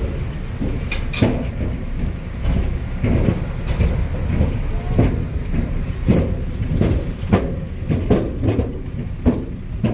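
A vehicle running with a steady low rumble and irregular knocks and rattles as it crosses a steel truss bridge.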